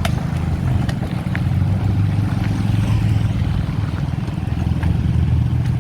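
Steady low rumble of wind buffeting the microphone and street noise while riding a bicycle, with a few faint clicks.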